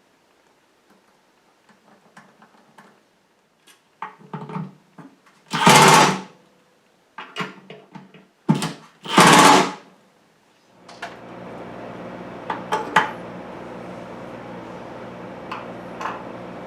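Workshop handling noise: light clicks and knocks, then two loud noisy bursts about three seconds apart, each lasting under a second. About eleven seconds in, a motor-driven shop machine starts and runs steadily with a constant hum.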